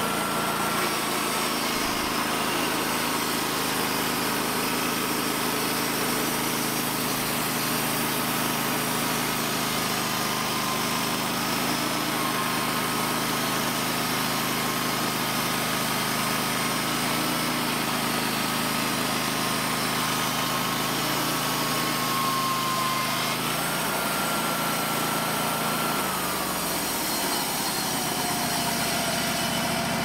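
A Wood-Mizer LT15 band sawmill's Kohler Command Pro 25 engine runs steadily while the blade saws through a log, with a steady whine over the engine hum. Near the end the pitch drops.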